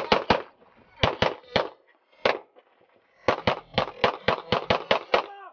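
Semi-automatic pistol shots. A few come near the start, a few more between one and two and a half seconds in, then a fast string of about nine shots, roughly four a second, over the last two seconds.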